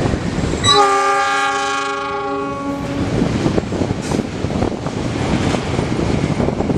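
Diesel locomotive sounding its horn in one long blast starting about a second in, fading out after about two seconds. A freight train of tank wagons rolls past throughout, its wheels clattering on the rails.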